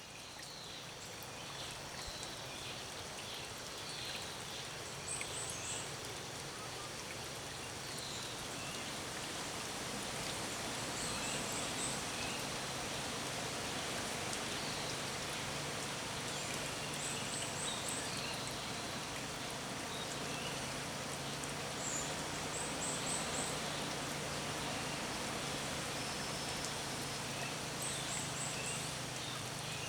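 Birds singing over a steady background hiss and a low hum. One bird repeats a high, quick run of three or four notes about every six seconds, while others give short scattered chirps.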